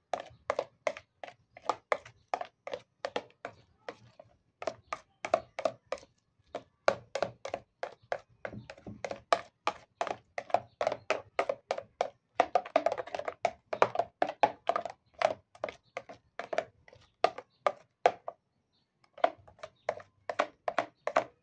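A metal spoon stirring a thick white cream mixture in a plastic bowl. Quick, even strokes, about three a second, each giving a short click or clack of spoon on bowl, with a few brief pauses.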